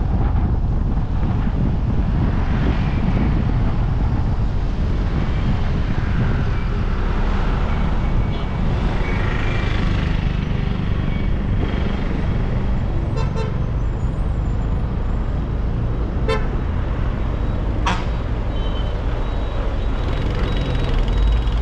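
Steady engine and road rumble of a car in motion, with a few short vehicle horn toots from the traffic.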